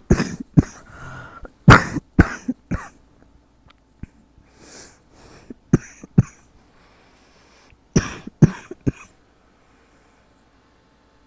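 A person coughing in fits at night: a run of sharp coughs in the first three seconds, two more a little past the middle, and a last run of three about eight seconds in.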